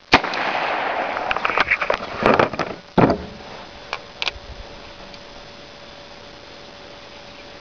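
Unsuppressed Nagant M1895 gas-seal revolver firing: three sharp, loud reports, the first at the start with a long echoing tail and two more about two and three seconds in. A couple of faint clicks follow about a second later.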